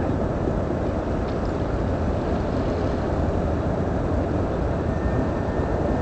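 Steady low rumble of a vessel's engine, mixed with wind and water noise.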